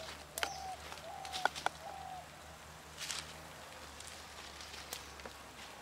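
A bird calling in short whistled notes, about five of them in the first two seconds, each dipping in pitch at the end. Over it come a few soft clicks and scrapes from a wooden spatula stirring food in a clay pot.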